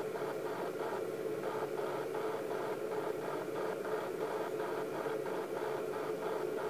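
Steady electronic hiss and hum from a video monitor's speaker, with a fast, even flutter running through it.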